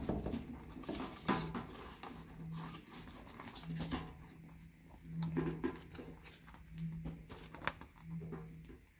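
Small plastic retaining clips being squeezed and pushed out of a steering-column shroud's leather cover: scattered clicks and rustling of plastic and fabric, with a low hum that comes and goes.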